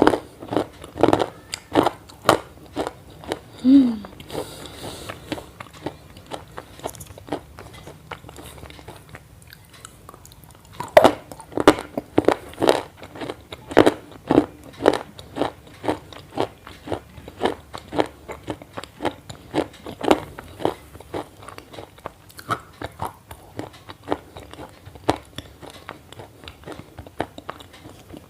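Crunchy chewing: someone biting and chewing something crisp, one short crunch after another, about one or two a second. About four seconds in there is a short falling squeak.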